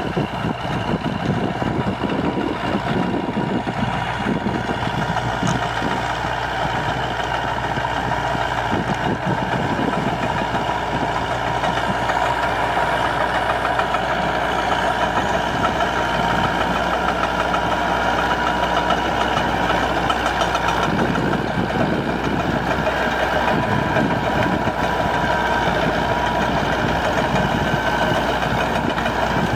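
Massey Ferguson half-track tractor's diesel engine running steadily under load, driving a rear rotary tiller through dry soil.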